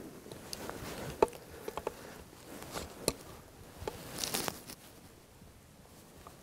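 Light crackling and rustling in dry leaf litter, with scattered sharp clicks: the loudest comes about a second in and another about three seconds in, then a short burst of rustling, after which it quiets down.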